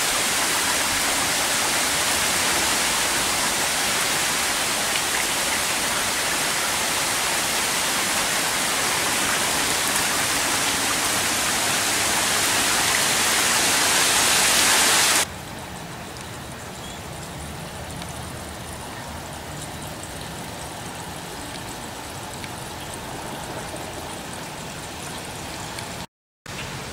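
Steady rain hissing. About halfway through it cuts abruptly to a softer, lighter hiss, and it drops out briefly near the end.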